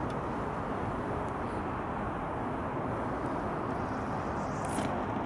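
Steady hum of distant city traffic, with a short faint rustle near the end.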